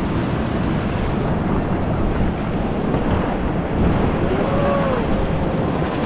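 Whitewater rapids rushing and churning around an inflatable raft, a loud, steady roar of water with wind buffeting the camera microphone.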